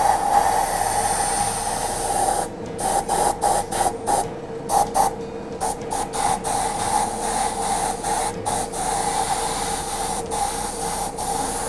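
Airbrush hissing as it sprays paint for fine detailing. The hiss is steady for the first two seconds or so, then stops and starts many times in short bursts.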